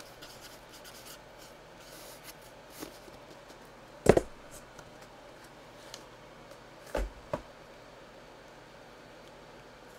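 Hands handling cardboard boxes and packaging on a table: light rustling and scraping, a sharp thump about four seconds in, and two quicker knocks around seven seconds.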